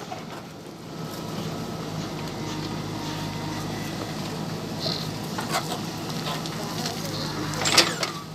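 JCB 3DX backhoe loader's diesel engine running steadily under a hiss, with a few sharp knocks, the loudest near the end.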